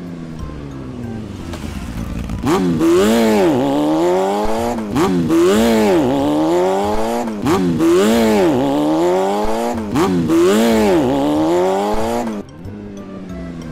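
Motorcycle engine running, then revved over and over from about two seconds in, its pitch swinging up and down roughly once a second; it drops back to steadier running near the end.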